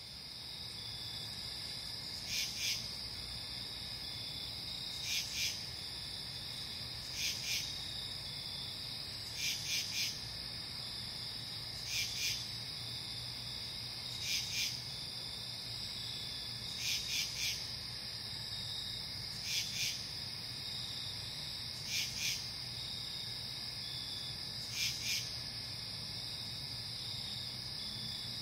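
Night insects: a steady high trill of crickets, with a louder call of two or three quick pulses repeating about every two and a half seconds.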